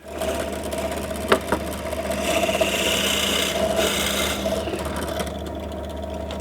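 Electric drill starting up and boring a hole into the end of a wooden slat: a steady motor whine, with a louder grinding from about two seconds in while the bit cuts into the wood, easing off about five seconds in as it runs freer.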